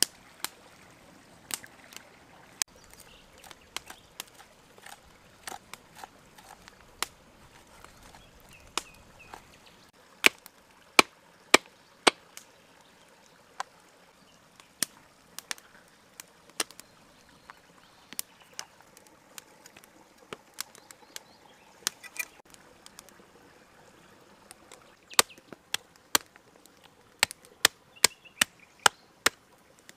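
A small stream running, then a toothed metal meat-tenderizing hammer striking a rack of raw lamb ribs on a wooden stump: sharp knocks about one to two a second, louder from about a third of the way in and coming in quick runs near the end.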